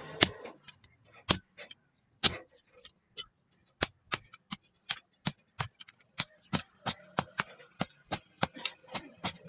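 Hammer blows on steel, each a sharp strike with a short metallic ring. A few widely spaced blows come first, then a steady run of about three strikes a second in the second half.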